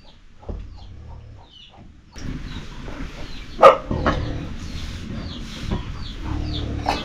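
Chickens clucking and peeping in repeated short, falling chirps, with one sharp knock about three and a half seconds in.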